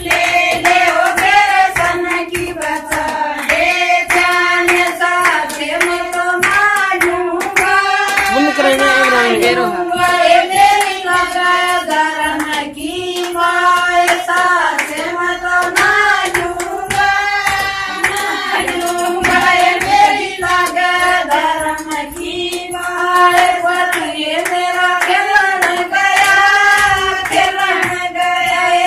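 A group of women singing a song together, with steady hand clapping keeping the beat.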